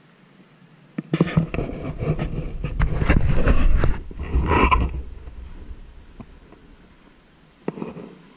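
Handling noise as the camera is turned round by hand: loud rubbing, scraping and clicking against the microphone starting about a second in, lasting about four seconds and then fading, with one more short scrape near the end.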